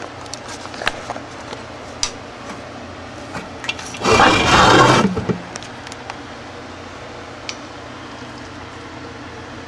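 Handling noise from a cut-open compressor on a bench: scattered light clicks and knocks, with one loud scrape lasting about a second near the middle.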